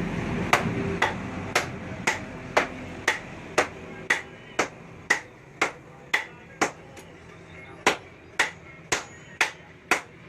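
Hammer striking steel about twice a second in an even rhythm, each blow giving a short metallic ring; the background slowly fades.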